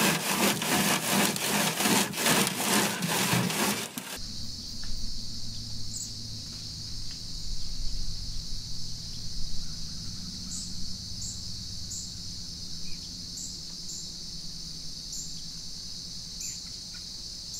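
Wheat heads rubbed hard back and forth across a wire hardware-cloth screen by a leather-gloved hand, a scratchy rasping in quick strokes, a few a second, as the grain is threshed out of the heads. It stops abruptly about four seconds in. A steady high-pitched insect chorus follows, with occasional higher chirps.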